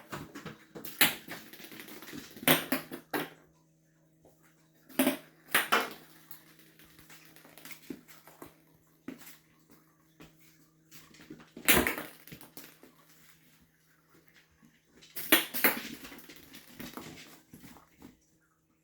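A ball knocked about and bouncing under cats' paws: several sharp, irregularly spaced knocks, with a faint steady hum behind from about two and a half seconds in.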